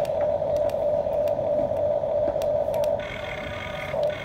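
Electric gear motors of a Huina toy RC excavator whining steadily as the boom lowers the bucket, with scattered light clicks. About three seconds in, the whine gets quieter and changes to a different, higher-edged tone as another motor takes over.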